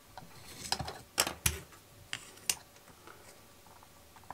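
Light clicks and taps of wood and plastic on a tabletop, about five of them in the first two and a half seconds, as a wooden ice-lolly stick is pushed under a wooden stand to shim a plastic model boat hull.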